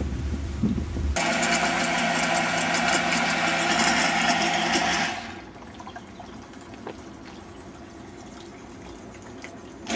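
Electric waste-water pump of a decontamination tent running: a steady motor hum under a loud rush of water. It starts suddenly about a second in and cuts off about five seconds in.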